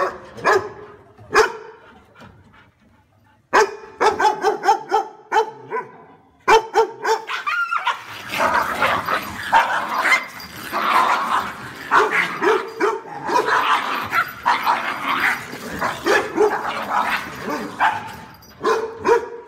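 A dog barking in runs of short barks. A few single barks come first, then a short pause, then the barking turns quick and nearly continuous through the middle.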